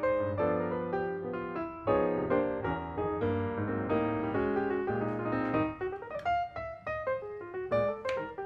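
Background piano music: struck notes with a low bass part. The bass drops away about six seconds in, leaving sparser higher notes.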